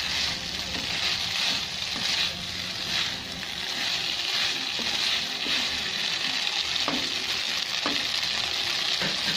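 Spaghetti with tomato and tuna frying in oil in a nonstick pan, a steady sizzling hiss as it is tossed and stirred with a spatula. A couple of light spatula knocks come about two-thirds of the way in.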